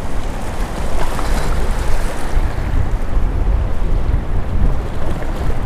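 Wind buffeting the microphone with a heavy, steady rumble, over choppy lake waves splashing against a concrete pier wall.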